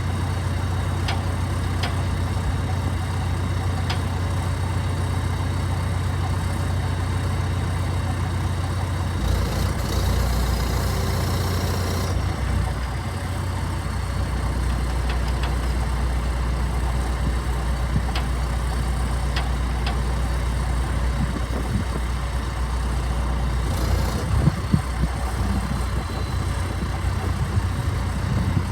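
John Deere 310SL backhoe's turbo diesel engine running steadily at idle. About a third of the way in it grows heavier under a hiss for roughly three seconds, and a few sharp knocks come near the end.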